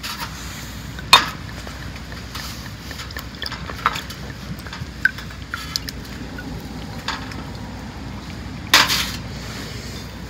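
Sake poured from a glass bottle into a ceramic cup, with a few clicks and knocks of bottle and cup on a perforated stainless-steel camp table: a sharp knock about a second in and a short clatter near the end as the bottle is set down.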